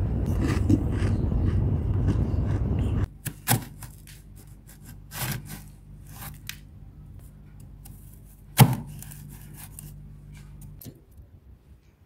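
Knife scraping and cutting through thick, soft freezer frost, giving scattered scrapes and crunches, the loudest about two-thirds of the way in, over a faint steady hum. It is preceded by a loud dense rushing noise that cuts off abruptly about three seconds in.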